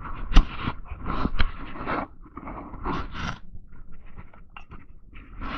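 A metal utensil scraping, crunching and knocking against a block of frozen chili in a camp pot. The loudest sharp knock comes just under half a second in, and it is quieter, with short ticks, in the last half.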